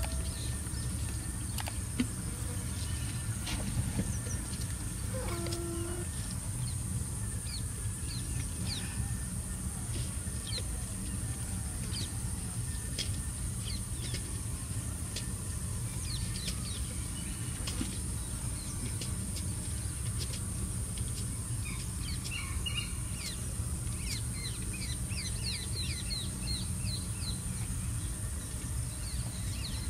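Birds chirping in many short, quick calls, thickest in the last third, with one lower, briefer call about five seconds in, over a steady low rumble and a steady high hiss.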